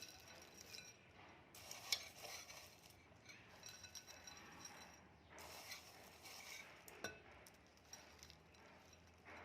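Faint rustling and light clinks as crunchy farsan is added to a bowl of puffed rice for bhel, with a sharper clink about two seconds in and another about seven seconds in.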